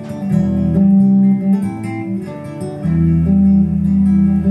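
Acoustic guitar strummed in an instrumental passage of a live folk song, its chords changing about a second in and again near three seconds.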